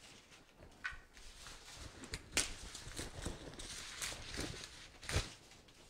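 Rustling and crackling of leafy flower stems and foliage being handled and worked into an arrangement, with a few sharper clicks and snaps along the way.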